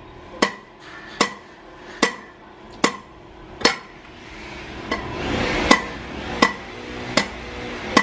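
Hammer striking the top of a copper ground rod to drive it into the soil: a steady run of metal-on-metal blows about every 0.8 s, each with a bright ring. A short break about four seconds in is filled by a rushing noise before the blows resume.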